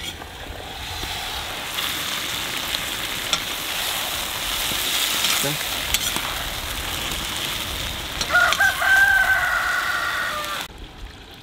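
Lamb ribs, onion and potatoes sizzling and frying in a hot cast-iron kazan over a wood fire, with the occasional scrape of a metal skimmer stirring. About eight seconds in, a rooster crows once for around two seconds.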